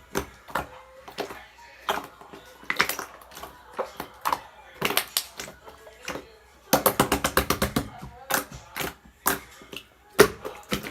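Slime being squeezed and poked by hand, making sharp wet clicks and pops at irregular intervals, with a quick run of rapid clicking about seven seconds in.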